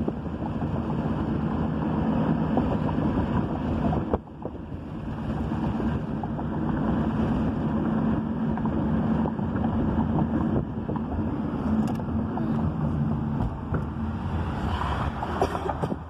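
Road and wind noise inside a moving car, a steady low rumble with a brief dip about four seconds in.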